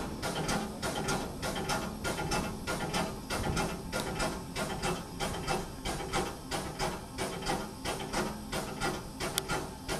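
Narrow-gauge steam tank engine running, heard from its footplate: an even beat of about four to five a second over a steady steam hiss.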